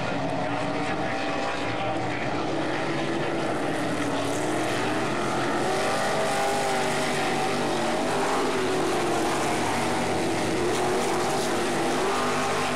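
Winged dirt-track sprint car's V8 engine running at speed on the oval, its pitch rising and falling in waves as it goes round.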